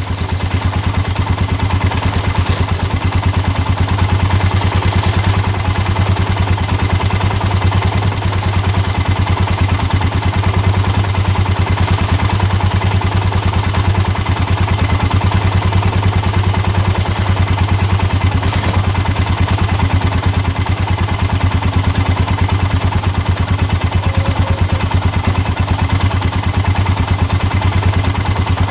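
Four-wheeler (ATV) engine running steadily at an even, low speed, with a loud, unchanging hum.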